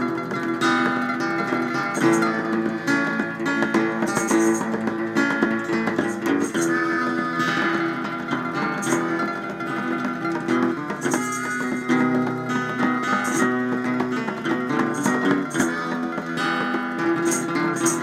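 Spaghetti-western-style instrumental music led by a plucked and strummed guitar, played through a converted Marlboro cigarette-box amplifier, with sharp percussion hits.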